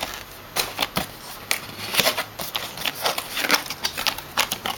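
Handling noise of hands moving a handheld oscilloscope close to the microphone: an irregular run of sharp clicks, taps and short rustles.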